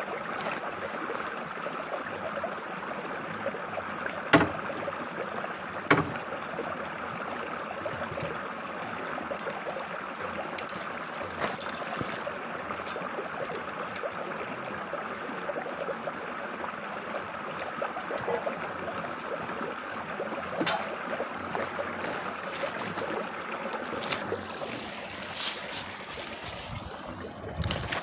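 Small creek trickling steadily over a low riffle of sticks and debris. Two sharp knocks come about four and six seconds in, and a burst of clattering knocks comes near the end.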